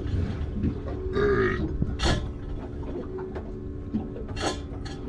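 Boat engine running steadily at trolling speed, with a short voice-like sound about a second in and a few sharp knocks.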